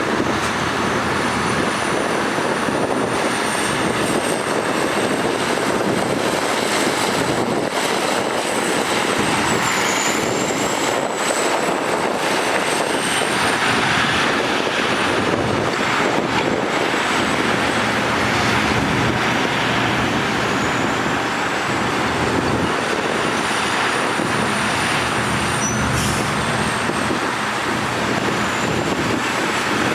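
Heavy earthmoving machinery, bulldozers and a dump truck, running with a steady, dense diesel engine noise. A faint high whine wavers in pitch over the top.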